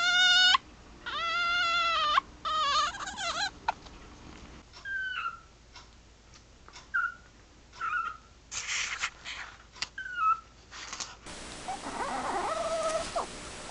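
Spotted genet vocalizing: three drawn-out, meow-like calls in the first few seconds, then a run of short high squeaks that fall in pitch, and another meow-like call near the end.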